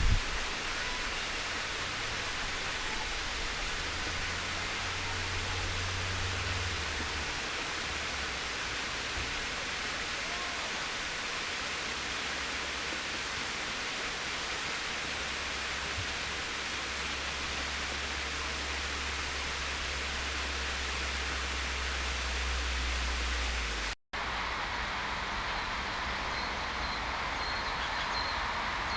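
Steady rush of flowing water, with a low rumble coming and going. About 24 seconds in it breaks off for an instant and resumes, now with a few faint high chirps from a small bird.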